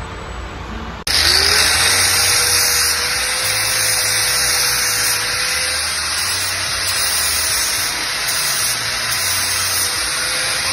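Angle grinder with a flap disc spinning up about a second in, its motor tone rising and then holding, then grinding steadily on the motorcycle's steel rear frame to prep it for welding.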